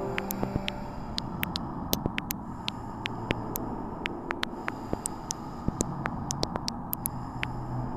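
Steady low rumbling noise with a faint low hum, cut through by many scattered sharp clicks and crackles.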